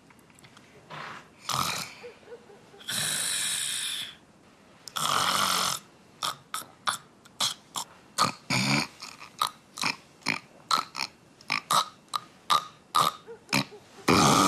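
A woman snoring loudly in her sleep. First come a few separate long snores, then a rapid run of short snores at about two or three a second.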